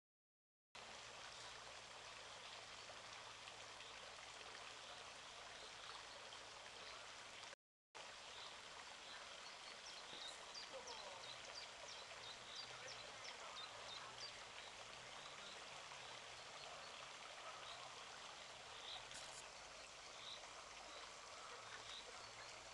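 Faint, steady hiss of a small river's flowing water, with scattered short high chirps in the middle stretch. The sound cuts out completely twice for a moment, once at the very start and again at about a third of the way in.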